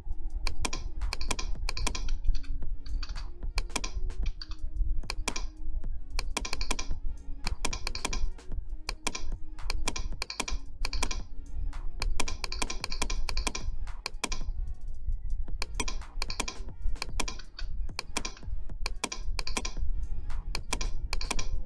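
Rapid, irregular clicking of a computer keyboard and mouse while editing text, over background music with a steady low bass.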